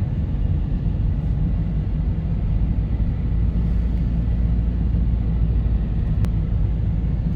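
Car driving along a road, heard from inside the cabin: a steady low rumble of engine and tyre noise, with a single brief tick about six seconds in.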